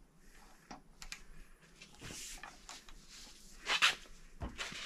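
Irregular clicks, knocks and scrapes from a long bar and socket being heaved on the crankshaft hub bolt of a BMW N55 engine during its 270-degree angle torque. There are louder rushes of noise about two and four seconds in.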